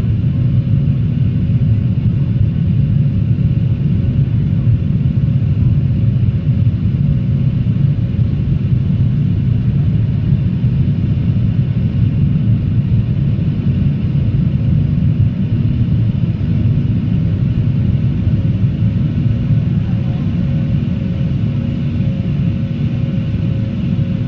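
Steady low cabin roar of a Boeing 737-800 climbing out, its CFM56-7B turbofan engines and the airflow heard through the cabin wall from a window seat over the wing, with a faint steady hum held under it.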